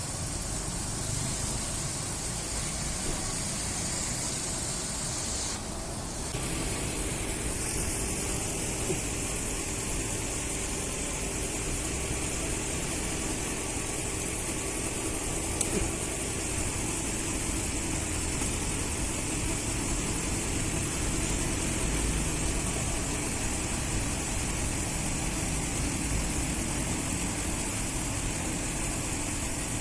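Car engine idling steadily; the higher hiss shifts about six seconds in.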